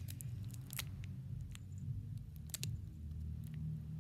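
A few faint crinkles and clicks from a Pokémon booster pack's foil wrapper being pulled at and worked open, over a low steady hum.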